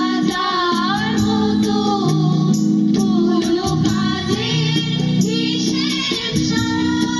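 Music with a singing voice over held low notes and a steady beat.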